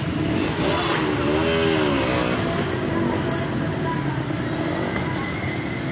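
Steady motor-vehicle traffic noise from a busy street, with a short pitched sound that rises and falls about a second and a half in.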